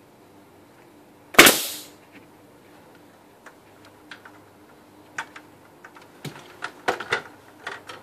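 Pneumatic nail gun firing once, a sharp bang with a short hiss of air, about a second and a half in. It is followed by scattered light knocks and clicks over the last few seconds.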